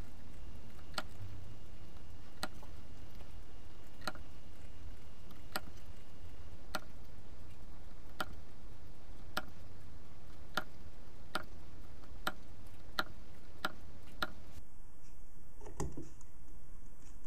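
Light, sharp clicks from hand work on a small clock wheel as its teeth are marked out, about one every second and a half at first and coming faster, about one every 0.7 s, toward the end. A duller knock comes near the end.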